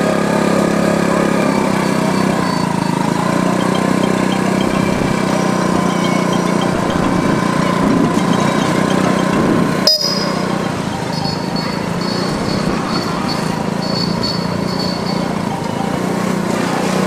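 A steady engine-like mechanical hum, with a single sharp click about ten seconds in.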